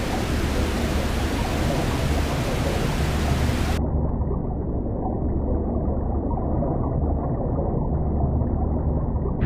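Steady underwater ambience: a low rumble under a rushing hiss. About four seconds in the hiss is cut off sharply, leaving a muffled rumble.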